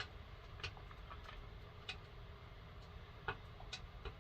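Scattered light clicks and taps from handling things, about six in four seconds, over a faint low rumble.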